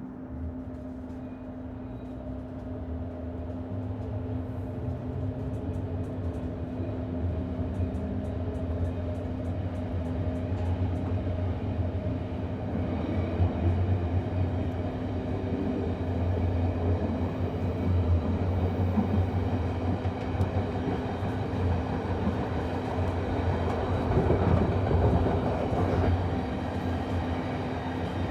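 Inside a commuter train pulling away and gathering speed: a steady electrical hum under a rail rumble that grows louder, with faint rhythmic clicking in the first part.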